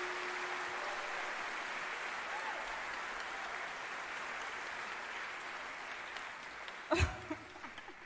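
Concert audience applauding, the clapping slowly dying away. A held note fades out in the first second, and a brief sharp knock-like sound comes near the end.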